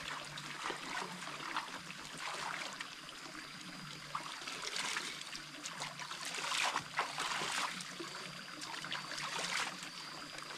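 Water trickling and splashing in an uneven patter, louder about two-thirds of the way through.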